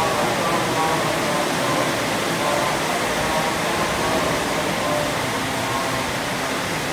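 Heavy rain falling, a steady hiss, with a group of male voices faintly chanting dhikr beneath it.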